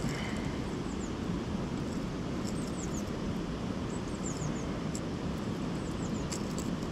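Steady low outdoor rumble, the sort of background made by wind, moving water or distant traffic. A few faint, high, quick chirps from small birds come in groups of three or four, about two and a half, four and six seconds in.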